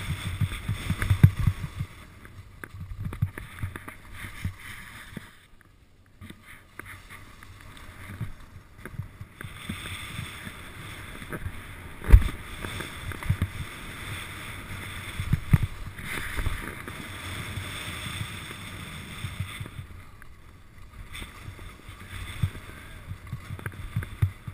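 Skis scraping and sliding over packed, bumpy snow, swelling and fading with each turn, with low knocks as the skier rides over moguls and one sharp thump about halfway.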